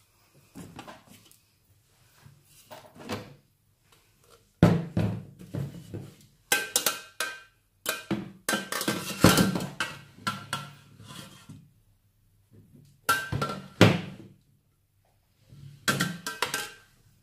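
Stainless-steel food-processor jugs being handled and set down: irregular knocks and clanks, some with a short metallic ring, the loudest about 5, 9 and 14 seconds in.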